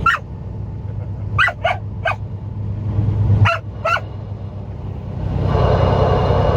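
An excited dog yipping and whining in short high yelps, about six in the first four seconds, over the steady low hum of the truck's engine in the cab. Near the end a louder rushing noise comes in for about two seconds.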